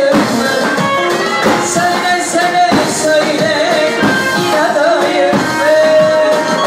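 A Turkish song performed live by a singer with band accompaniment, playing steadily and loudly.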